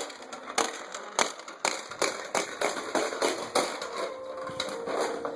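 A series of sharp, irregular knocks and taps, about two a second, like a hard object being banged or tapped on a hard surface.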